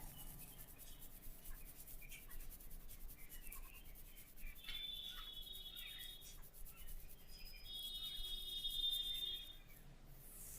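Hands rubbing and working a person's scalp and hair during a head massage: faint, quick scratchy rubbing strokes. A high steady tone rings out twice in the background, about halfway through and again near the end.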